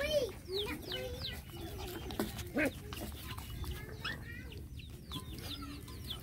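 Chickens calling: a busy run of short, high chirps that fall in pitch, with some lower calls among them.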